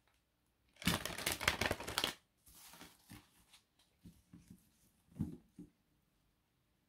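A deck of large reading cards being shuffled by hand: a dense rattle of cards for about a second, starting about a second in, then softer sliding and a few light taps.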